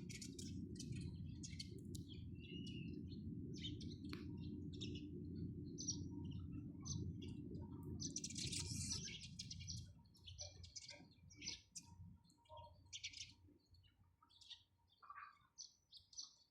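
Sparrows chirping in many short, quick calls, over a low steady rumble that stops about two-thirds of the way through.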